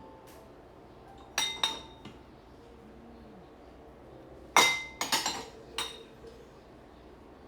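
Dishes clinking against each other as they are handled and put away: a couple of clinks about a second and a half in, then the loudest, ringing clink a little past the middle followed by several quicker ones.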